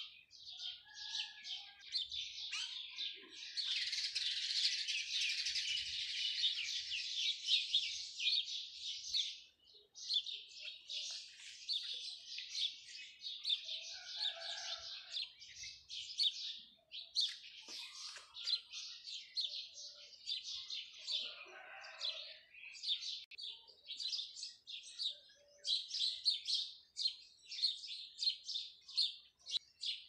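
Small birds chirping, a dense chorus of rapid high chirps that is thickest a few seconds in and keeps up steadily after.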